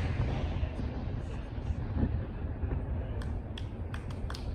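The echo of a large aerial firework shell burst dying away, followed by a steady low rumble and a few faint sharp pops near the end.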